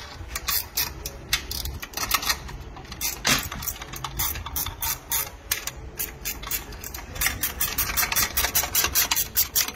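Hand ratchet wrench clicking in short strokes as a supercharger bracket bolt is run down, with faster runs of about five clicks a second in the later part.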